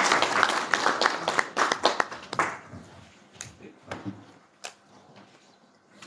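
Audience applauding for about two and a half seconds, then dying away, with a few scattered light knocks afterwards.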